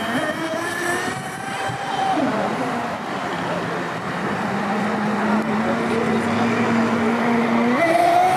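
Electric RC racing powerboat running at speed across the water, its motor whine dropping in pitch about two seconds in, holding steady, then rising again near the end as the throttle opens, over the hiss of spray.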